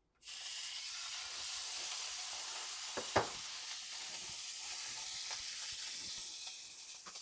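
A steak laid into a hot oiled stainless steel pan, setting off a sudden, steady sizzle as it starts to sear, with one sharp crack about three seconds in.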